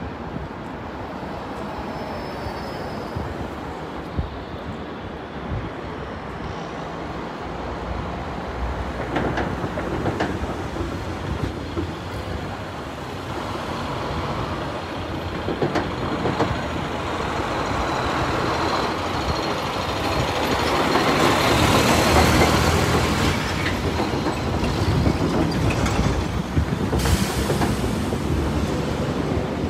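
City street traffic: a steady wash of engine and tyre noise from passing cars and trucks, swelling to its loudest as a large vehicle goes by about two-thirds of the way through.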